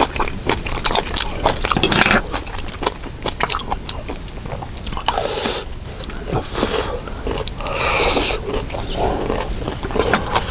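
Close-up eating sounds: chewing and mouth noises with frequent light clicks of a spoon against a dish while fried rice is eaten, plus a few short hissing swells.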